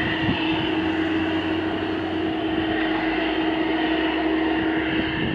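Boeing 747-400F freighter on the ground, its jet whine steady over a constant hum tone, stopping abruptly right at the end.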